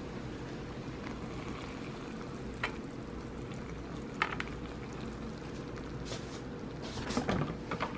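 Hot water poured from a kettle into a paper cup of instant ramyeon: a steady pour onto the dry noodles, with a couple of light clicks. The pour stops partway through, and a few light knocks and rustles follow near the end.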